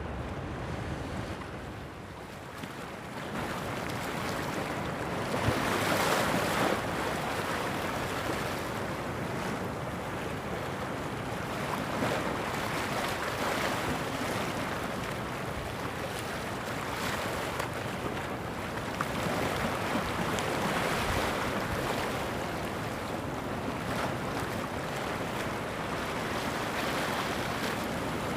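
Rough sea waves surging and breaking against the shore, swelling every few seconds and loudest about six seconds in, with strong wind buffeting the microphone.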